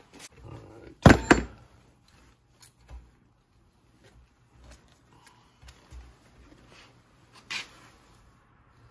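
Plastic bottle of bar and chain oil being handled and uncapped: a sharp cluster of crackling clicks about a second in, scattered light taps and knocks, and another sharp click near the end.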